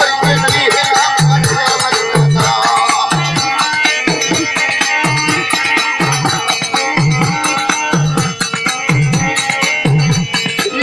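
Music with a steady low drum beat, about three beats every two seconds, under fast rattling percussion and a sustained melody.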